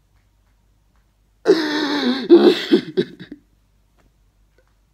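A man sobbing: a burst of choked, wavering crying that starts about a second and a half in and lasts about two seconds.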